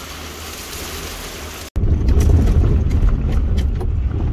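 Steady hiss of running water as containers are filled, cutting off suddenly a little under two seconds in. A louder low rumble with scattered clicks follows.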